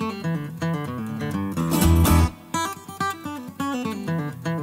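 Background music: plucked acoustic guitar playing a quick run of notes over a steady beat.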